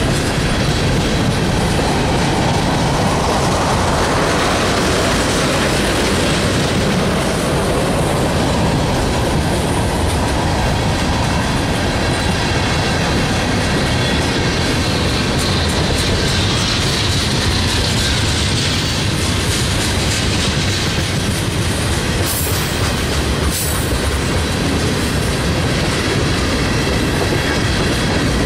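Freight train of covered hopper cars and tank cars rolling past close by, its steel wheels clattering on the rails. A wheel squeal rises and falls in pitch now and then, and two sharp clicks come about three-quarters of the way through.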